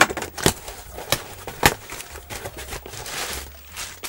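Cardboard box being opened by hand: four sharp clicks and knocks in the first two seconds, then rustling of cardboard flaps being pulled open.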